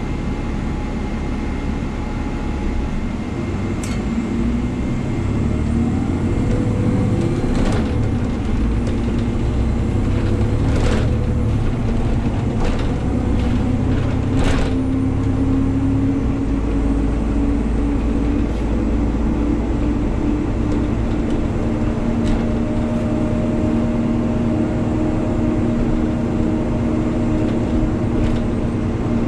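Cabin noise inside an articulated city bus under way: steady drivetrain rumble and road noise, with a whine that slowly rises in pitch as the bus gathers speed and then holds steady. A few short sharp rattles come early on the way up to speed.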